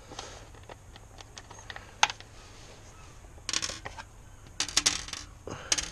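Small hard parts being handled, making sharp clicks and short rattling clatters: one loud click about two seconds in, then quick clusters of clicks three times in the second half.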